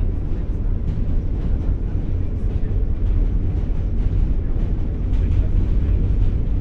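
Steady low rumble inside a New York City Q train subway car while it runs, with faint irregular clicks and rattles over it.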